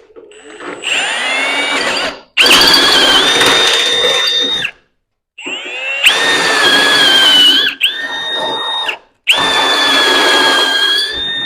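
Electric drill with a 3/4-inch step bit, drilling out half-inch holes in steel frame metal. It runs in several bursts with short pauses, its whine climbing in pitch as it spins up at the first start.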